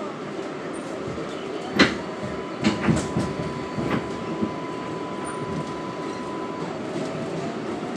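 R188 subway car running along the track, its wheels clacking sharply over rail joints, once about two seconds in and in a quick cluster a second later. A steady high tone holds for several seconds in the middle, and a faint rising whine starts near the end.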